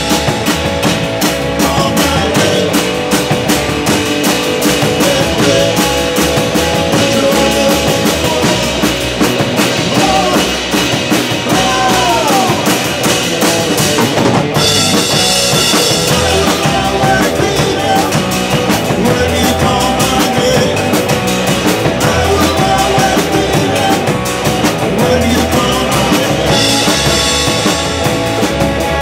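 Live three-piece rock band playing loudly: electric guitar, electric bass and drum kit, with the cymbals surging about halfway through and again near the end.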